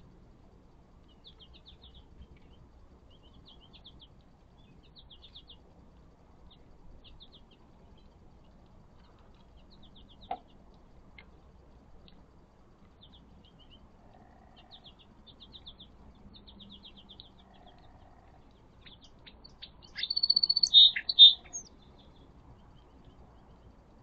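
Small songbirds chirping in short, rapid twitters, with a much louder burst of calls close by about twenty seconds in.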